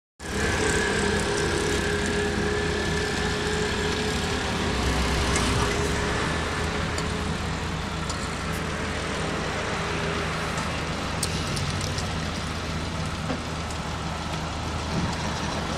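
Steady road-vehicle noise of a car running, engine and tyres, with a thin steady whine through the first part that fades out about ten seconds in.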